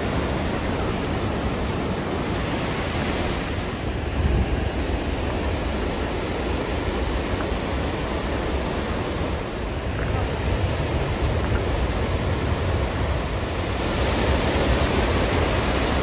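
Steady rushing of Gullfoss, a large two-tiered waterfall, heard close to the falls, with a deep rumble underneath.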